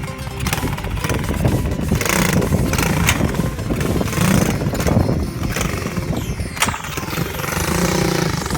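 Pit bike's Lifan 125 four-stroke single-cylinder engine running, its level rising and falling.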